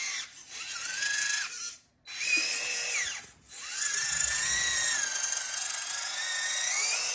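A small electric motor or power tool whining in bursts, starting and stopping a couple of times, its pitch rising and falling as its speed changes, then running on steadily.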